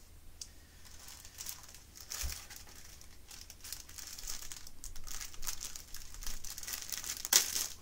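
Small plastic bags of diamond-painting drills crinkling as they are handled. The crinkling is sparse at first, grows busier toward the end, and peaks in one loud crinkle near the end.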